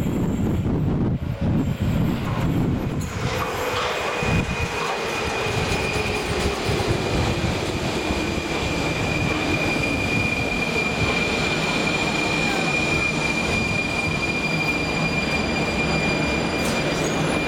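Metro train running into the station and braking: a low rumble as it enters, then, from about three seconds in, a steady high-pitched squeal and a whine that falls in pitch as the train slows to a stop. The squeal ends near the end.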